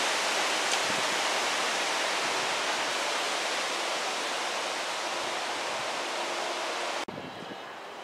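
Wind rushing through tree foliage: a steady hiss that eases slightly, then cuts off abruptly about seven seconds in to a much quieter background.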